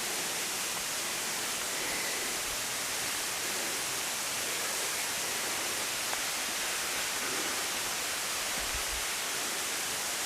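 Steady, unbroken rushing of falling water from a mountain waterfall.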